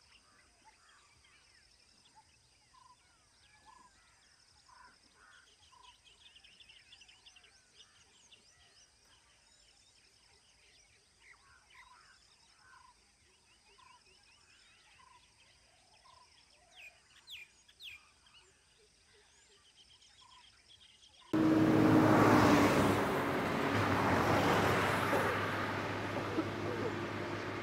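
Faint birdsong over a steady high insect drone, with one bird repeating a short note about once a second. About three quarters of the way through, a large lorry's engine and tyres come in suddenly and loudly as it drives close past, then ease off a little.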